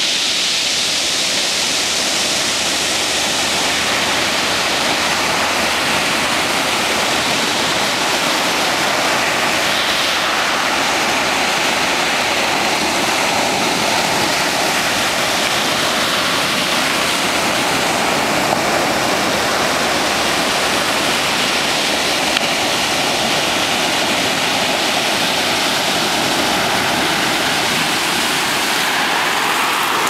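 Ocean surf washing steadily over a pebble beach, the waves rolling and tumbling the rounded stones.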